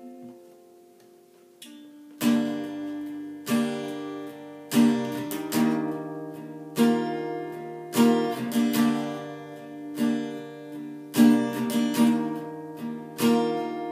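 Instrumental break in a slow song. For about the first two seconds the held notes of the last chord fade out. Then a stringed instrument strums a chord about every second and a quarter, each chord ringing out after its sharp attack.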